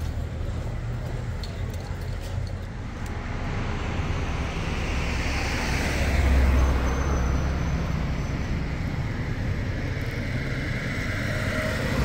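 Road traffic: cars driving past, their engine and tyre noise swelling as each goes by, loudest about six seconds in, with another car passing close near the end.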